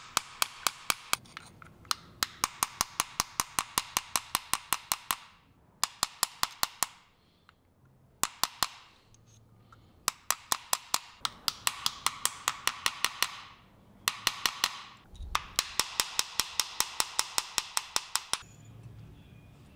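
Hammer tapping a wooden punch to seat a bronze inlay into a wrought iron spoon, in quick even runs of about four or five taps a second. The runs break off briefly several times, and a light ringing carries under each run.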